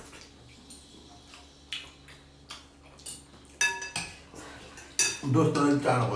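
Spoons and chopsticks clinking against ceramic soup bowls during a meal of noodle soup: a few light clinks, then two louder, briefly ringing clinks about three and a half and five seconds in. A voice starts near the end.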